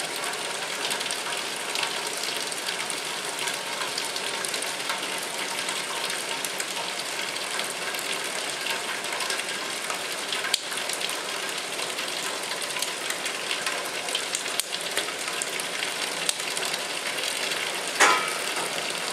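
Maple syrup evaporator pans boiling steadily: a continuous hiss with faint scattered crackles, while syrup is being drawn off the front pan. A short, louder sound near the end.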